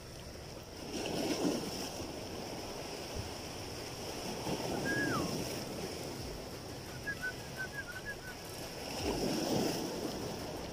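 Sea water washing against the rocks in three slow swells, with light wind on the microphone. A few faint short high chirps come through in the middle.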